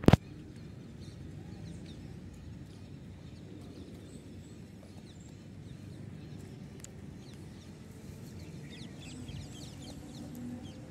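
A sharp click right at the start, then a steady low outdoor rumble, with a flurry of short high chirps from birds in the last couple of seconds.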